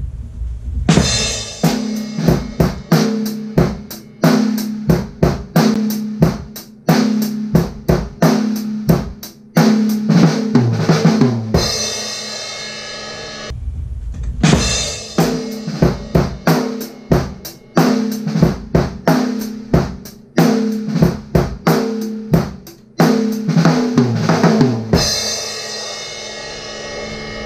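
Acoustic drum kit played: a groove of bass drum, snare and hi-hat, with the snare ringing strongly on its backbeats, ending on a cymbal that rings on. After a short break, about halfway through, the same kind of passage is played again and again ends on a ringing cymbal.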